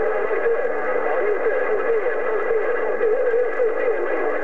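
CB radio receiving another station's transmission on 27.025 MHz: a wavering, warbling pitched tone with overtones, heard through the radio's narrow speaker sound.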